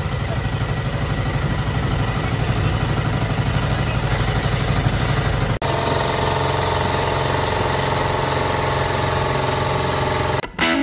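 Outrigger passenger boat's engine running steadily while under way, with a fast even pulse. About halfway it breaks off abruptly and resumes with a steadier note, then drops out just before the end.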